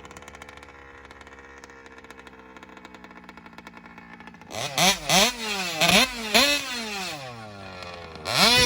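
Large-scale RC car's gasoline two-stroke engine idling steadily, then blipped up and down about four times in quick succession. It drops back to idle and is revved hard again near the end.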